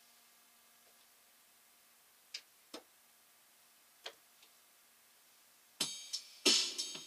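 A few sharp single clicks over a faint steady hum, then about six seconds in electronic music starts: loud drum-machine beats with synthesized tones.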